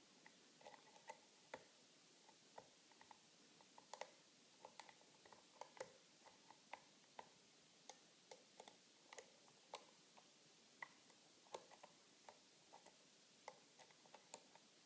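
Faint, irregular clicking and ticking of a Peterson hook pick working the pin stack of an American Lock Company padlock, single pin picking under light tension from a pry-bar tension tool.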